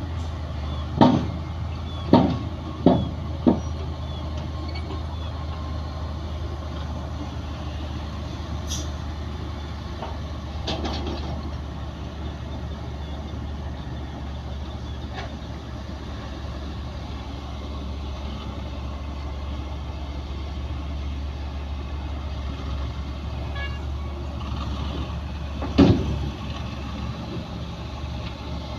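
Heavy diesel earthmoving machinery running steadily with a low drone. Sharp bangs come four times in the first few seconds and once more near the end.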